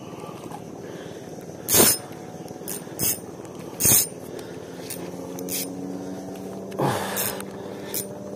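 Small spinning reel (a Ryobi Smurf 1000) being cranked against a hooked trevally on a bent light rod, with a steady low whir from about halfway through. Three loud sharp splashes or knocks come about two, three and four seconds in.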